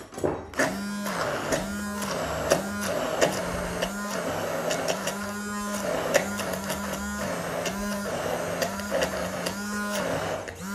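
Handheld immersion blender running in a plastic beaker, blending cavolo nero, nuts and oil into a thick pesto. Its motor note dips and recovers over and over as the blade works through the paste, with occasional sharp clicks.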